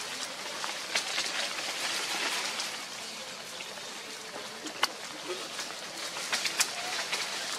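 Dry leaf litter and twigs rustling and crackling over a steady forest hiss, with scattered sharp clicks and snaps, the clearest about a second in and near five seconds.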